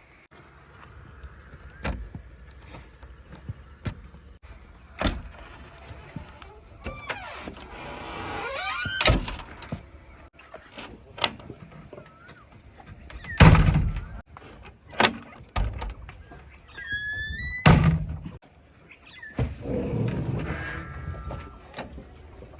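JCB 3DX backhoe loader at work: its engine runs low and steady under repeated clanks and knocks, with two heavy thuds in the second half and a few short squeals.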